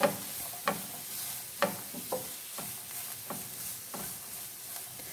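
Wooden spatula stirring chopped onion, cabbage, carrot and capsicum in a nonstick frying pan, knocking and scraping against the pan about seven times, over a steady sizzle of the vegetables frying.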